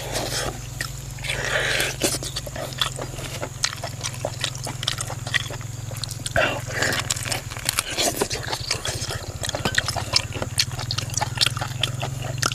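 Close-up eating sounds: cooked meat torn apart by hand and chewed, with many wet smacks and crackling clicks of skin and flesh. A steady low hum runs underneath.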